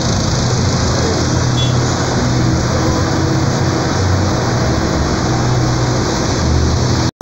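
Diesel engines of several farm tractors running as they drive slowly past one after another, a steady low engine hum over a wash of engine noise.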